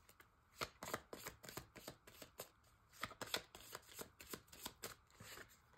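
A deck of divination cards shuffled by hand: a quick, irregular run of soft flicks and clicks.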